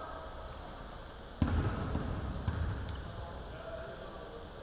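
Basketball bouncing on a hardwood gym floor, echoing in a large hall: one hard bounce about a second and a half in and a lighter one about a second later. Short sneaker squeaks and faint voices sound in the background.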